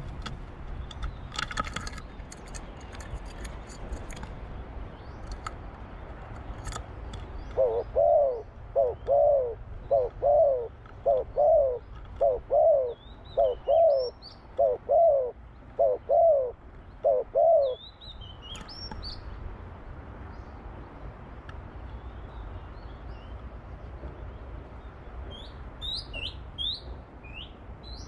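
Spotted dove cooing: a run of about a dozen low, evenly spaced coos that starts about eight seconds in and lasts about ten seconds. Small birds chirp faintly in the background.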